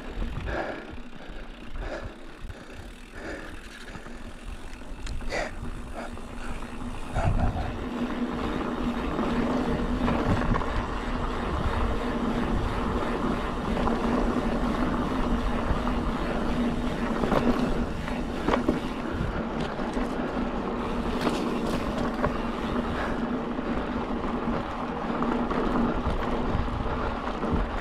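Mountain bike rolling down a dry dirt jeep track: tyre noise and rushing air with scattered rattles and knocks over bumps, getting louder about seven seconds in as speed builds.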